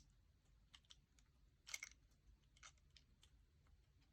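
Faint, scattered clicks of small metal parts as a lock is fitted into a lock-picking tool, with the clearest cluster a little under two seconds in.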